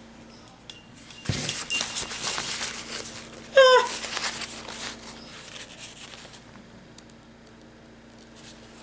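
Rustling and light clicking from handling things on a work table for a few seconds, with one short, wavering pitched squeak or call about three and a half seconds in.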